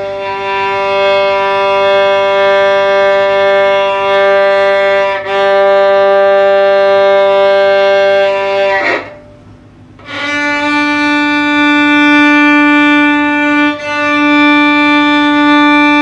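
Violin played with the bow in two long held notes, the second higher, each with a short break midway where the bow changes direction; a pause of about a second separates the two notes.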